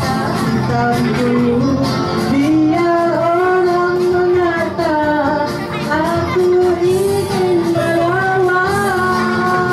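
Female singing into microphones, amplified, over a musical backing track, with long held notes.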